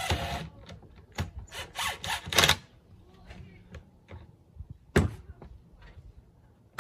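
Cordless drill driving a pocket-hole screw into a wooden frame joint in a few short bursts, then a single sharp knock about five seconds in.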